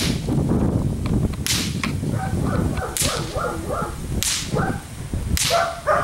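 A whip cracking four times, about once every second and a half, as an agitator works a Dutch shepherd. From about two seconds in, the dog answers with quick runs of short barks.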